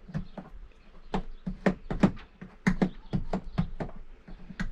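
Rapid, irregular plastic clicks, about three or four a second, from the control knobs and vent levers of a Coleman Mach 3 RV air conditioner's ceiling assembly being turned and worked by hand.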